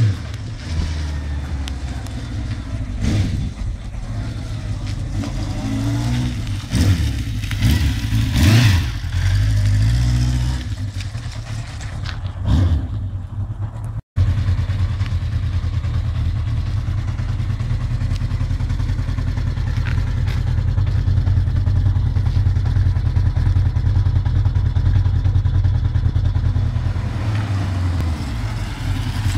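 Kawasaki ZX750 A1 (GPz750) motorcycle's inline-four engine, an old bike brought back into running order. In the first half it runs and revs up and down as the bike rides up. After a sudden cut it runs steadily at a near-even note, then revs again as the bike pulls away near the end.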